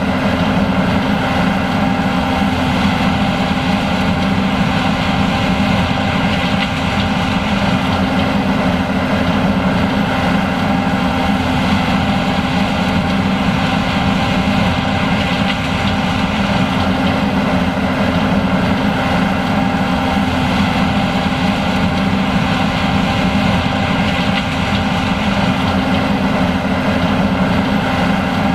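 John Deere S780 combine running steadily while harvesting corn: a constant loud machine drone with several unchanging tones.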